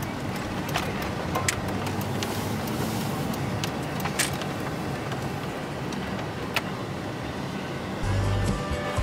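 Inside the cab of a 1997 Chevrolet K1500 pickup on the move: steady drone of its fuel-injected V8 and tyres on the road, with a few sharp ticks scattered through. Music comes in about eight seconds in.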